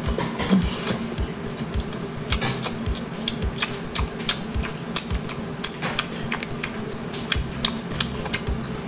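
Shells of spicy chili-oil-coated lobster tails cracking and snapping as gloved hands tear them open: a quick, irregular run of sharp clicks.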